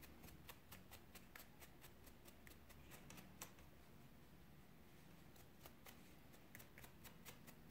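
Faint, irregular flicking of a plastic wide-tooth comb raking through a cotton macramé-cord pompom, teasing the fibres apart, a few light clicks a second.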